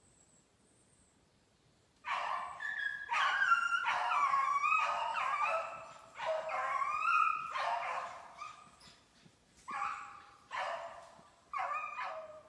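Beagles baying on the track of a snowshoe hare: long, wavering howls in overlapping runs starting about two seconds in, then shorter separate bays near the end.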